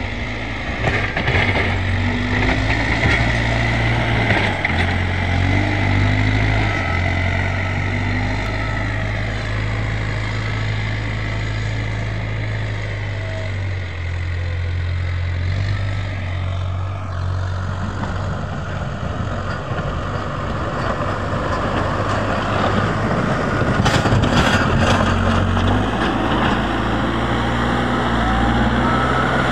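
Case 851EX backhoe loader's diesel engine running under load as it pushes snow with its front bucket, its pitch stepping up and down with the throttle.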